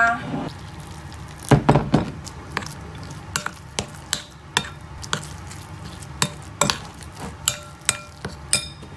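Metal spoon stirring and mashing wet ground cat kibble in a ceramic bowl, clinking against the bowl about twice a second, with a louder cluster of knocks about one and a half seconds in. The dry food is being mixed with hot water until it soaks it up.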